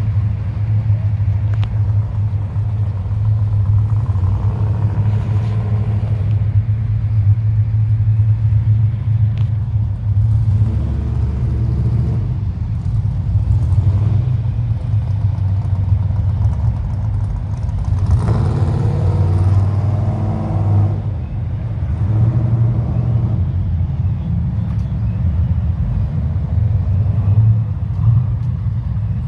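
Steady low rumble of car engines running, with louder swells a few times as other vehicles move close by.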